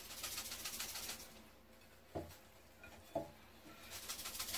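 Dry peri-peri seasoning being sprinkled over a raw whole chicken: two short spells of faint, fine patter of falling grains, one at the start and one near the end. Two soft knocks come between them, about a second apart.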